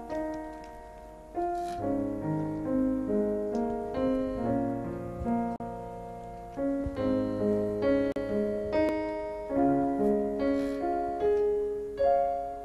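Electronic keyboard playing a slow melody of single notes over held low chords.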